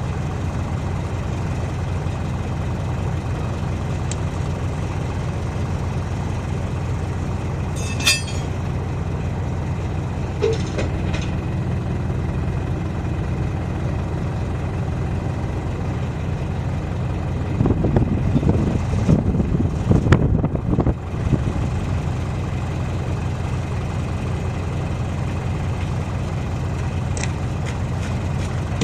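Diesel engine idling steadily, with a sharp metallic knock about eight seconds in. A louder spell of rough, clattering noise follows about two-thirds of the way through.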